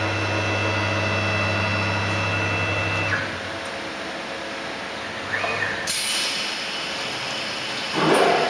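CNC router spindle running with a steady whine that stops about three seconds in; a loud hiss of compressed air starts about six seconds in, and the spindle spins up again near the end with a rising whine, as in an automatic tool change.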